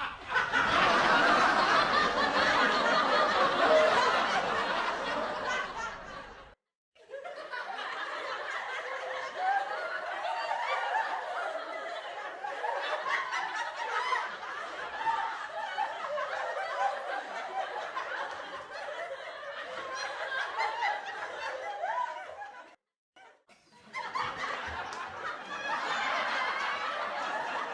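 Sitcom laugh track: a studio audience laughing, in three separate clips played one after another. The first and loudest stops abruptly about six and a half seconds in; the second runs to about twenty-three seconds; after a short gap a third begins.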